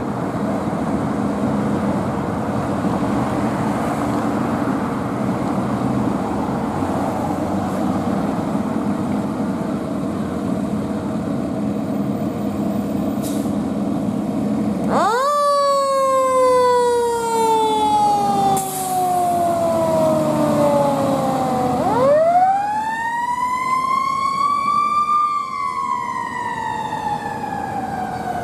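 Fire engine's diesel engine running as it pulls out. About halfway through its siren starts: a quick rise, then a long falling wail, then a second rise and a slow fall.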